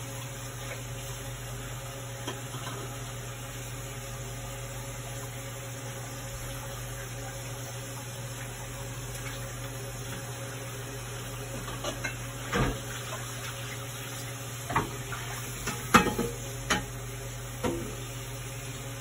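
Metal pots and utensils clinking and clanking on a gas stove over a steady low hum. Through the second half come a handful of irregular sharp clanks, the loudest about three-quarters of the way in.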